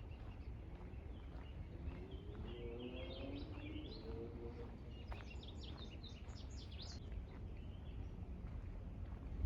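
Small birds chirping, first a cluster of calls a couple of seconds in, then a run of quick, higher notes around five to seven seconds, over a steady low background rumble.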